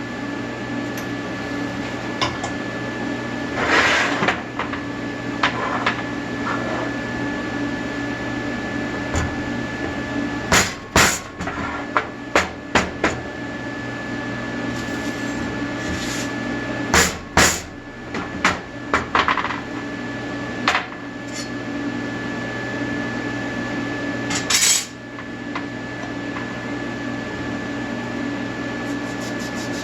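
Arc welder buzzing steadily. A few sharp metallic clicks and clanks come in the middle, and there are short crackling bursts about 4 seconds in and near the end.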